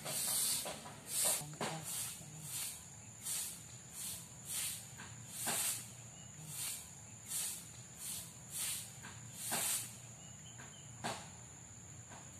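Stick broom sweeping a dirt yard: brisk scratchy swishes, roughly one stroke a second and unevenly spaced. A faint steady high insect whine runs underneath.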